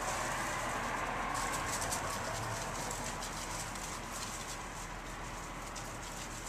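Young puppies making small squeaks and grunts, with scattered soft clicks, over a steady background hiss and a low hum.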